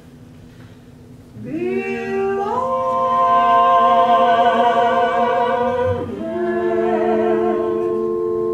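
A soprano and a tenor singing a duet in operatic style. After a quiet first second and a half, both voices glide up onto a long held final note with vibrato, which breaks off about six seconds in, while an accompanying chord sustains beneath.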